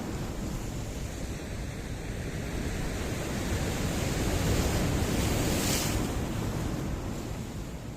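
Sea surf washing over rocks: a steady rush of water that swells as a wave comes in, breaks with a bright hiss of foam a little over halfway through, then eases off as it draws back.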